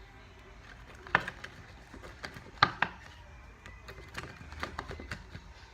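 Mixing spoon clicking and knocking against a bowl while stirring a glue-and-borax slime that has not yet set, with two sharper knocks about one and two and a half seconds in.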